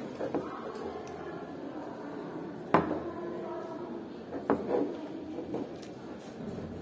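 A paintbrush scraping and clinking against a small ceramic bowl while white safeda (gouache) paste is mixed. The loudest is a sharp clink a little under three seconds in that rings briefly, followed by two lighter clinks about a second and a half later and one more near the end.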